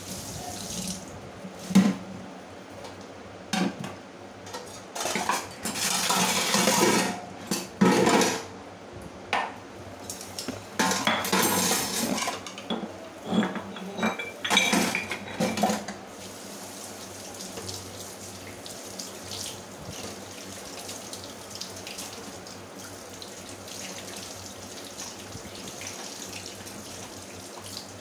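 Steel dishes and utensils clattering and scraping in a stainless steel kitchen sink as they are washed by hand, with sharp knocks now and then. About sixteen seconds in, the clatter stops and only the tap's steady stream of water runs.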